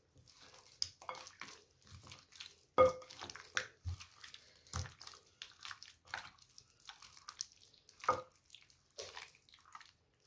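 Hands squishing and kneading chicken pieces in a wet yogurt-and-spice marinade in a glass bowl: irregular wet squelches, the loudest about three seconds in.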